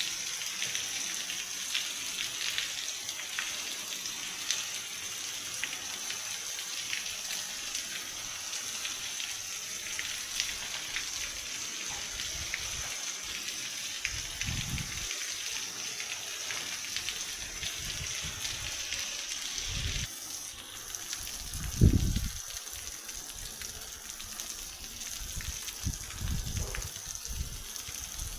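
Heavy rain falling in a steady hiss, with many small drip and splash ticks and water running and gushing. Several low thumps come in the second half, the loudest about two-thirds of the way through.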